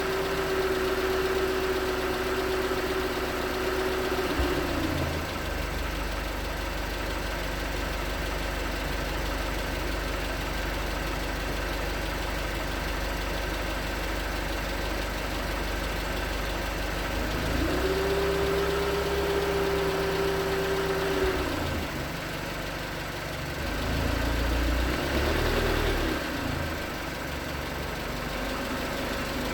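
2019 Hyundai Tucson's 2.0-litre Nu GDI four-cylinder engine running at idle with a knocking that the owner takes for piston slap when cold. A steady whine over the engine drops away about four seconds in and comes back for a few seconds later on, and near the end the pitch rises and falls twice.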